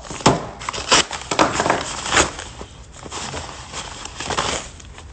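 Rustling and crinkling of a yellow padded mailer envelope as it is shaken and handled. Several sharp crackles come in the first couple of seconds, and the sound grows softer toward the end.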